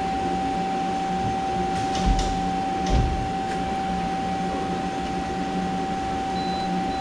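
Steady machine-shop background of an even high-pitched whine over a lower hum, with two dull thumps about two and three seconds in.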